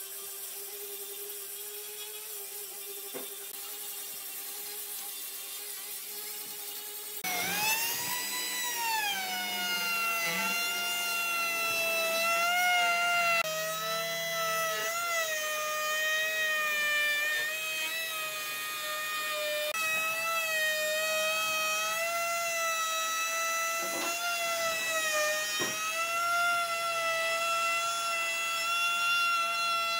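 Angle grinder with a sanding disc running at a steady whine against a wooden tabletop edge. About seven seconds in, this gives way to a louder, higher whine from a compact trim router cutting a profile into the edge of the solid wood top. The router's pitch rises, falls back and then wavers as it is pushed along the cut.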